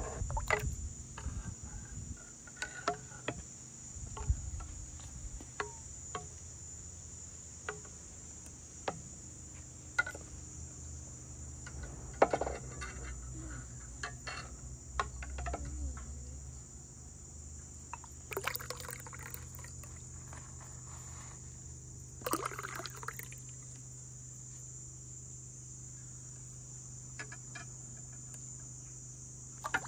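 Insects chirring in a steady high drone, with scattered light clicks and knocks and a few brief rustling bursts.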